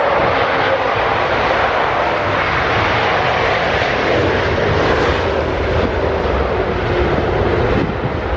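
Jet engines of an Airbus A330 passenger jet as it lands and rolls out along the runway: a loud, steady rush of jet noise, which grows deeper and heavier from about halfway through.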